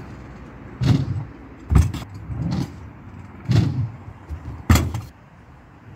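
Freestyle kick scooter rolling over and landing on skatepark ramps: a run of rumbling clatters, with two sharp knocks of landings about two seconds in and near five seconds.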